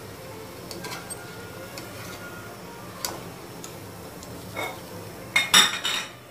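Wire spider strainer clicking and clinking against a metal wok as fried sesame balls are lifted out of the oil: scattered single clicks, then a louder burst of clinks and scraping near the end.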